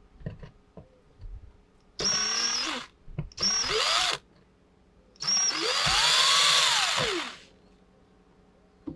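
Power drill run in three bursts, the last and longest about two seconds, its motor pitch rising and falling with the trigger; drilling holes in the fiberglass dash. A few light knocks come before the first burst.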